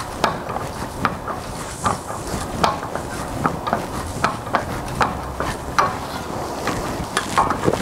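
Lever-operated press hammer, a tucking tool fitted with a hammerhead, knocking repeatedly down on sheet metal over a soft rubber pad, about two knocks a second, stretching the metal.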